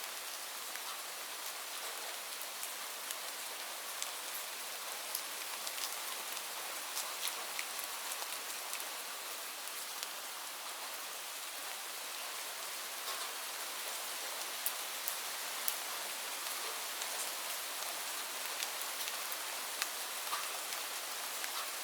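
Steady rain falling, a constant hiss with scattered sharp ticks of individual drops striking a surface.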